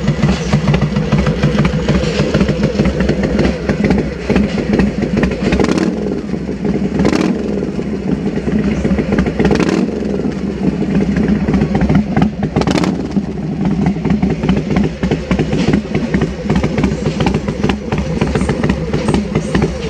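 Carburetted Harley-Davidson Sportster XL1200's 1200 cc V-twin engine running steadily at idle, heard through a handmade 2-into-2 fishtail full exhaust.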